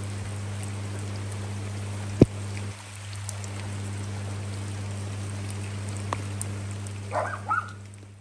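Rain falling steadily on a wet stone patio, drops spattering into shallow puddles. A steady low hum runs underneath, and a single sharp tap sounds about two seconds in.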